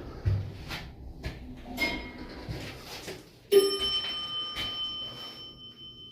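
Elevator chime: a single bright ding about three and a half seconds in that rings on and slowly fades, after a few short knocks and clicks.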